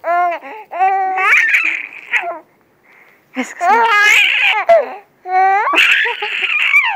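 Baby laughing in high-pitched bursts, about four runs of laughter with a short pause near the middle.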